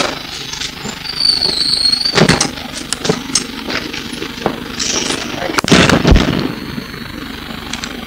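Inside a MAN SL200 city bus under way: engine and road noise with frequent rattles and knocks from the body, the loudest about two seconds in and again about six seconds in, heard through an old cassette recording.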